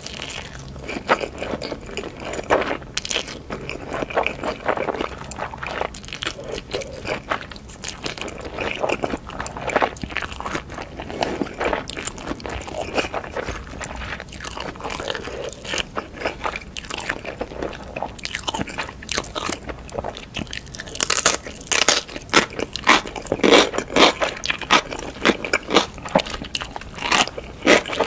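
Close-miked ASMR mouth sounds of a person eating spicy instant noodles: slurping and chewing, a dense run of small irregular clicks and smacks that gets louder in the last several seconds.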